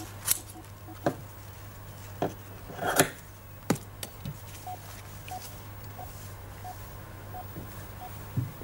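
Scissors snipping through a thin plastic-like sheet, with several sharp snips in the first four seconds and the loudest about three seconds in. After that a faint electronic beep repeats about every two-thirds of a second over a low steady hum.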